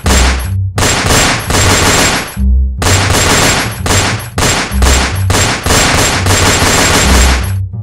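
Gunfire sound effect: repeated bursts of rapid shots with short gaps between them, stopping shortly before the end. Low bowed-string music, double bass and cello, plays underneath.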